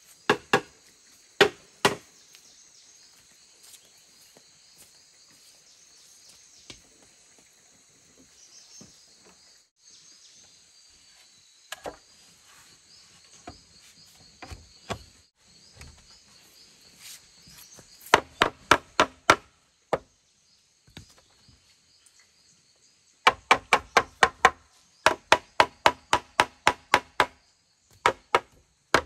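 Bamboo being chopped: sharp strikes, each with a short ring, a few near the start and then two quick runs of about four strikes a second in the second half. Insects buzz steadily in the quieter stretch between.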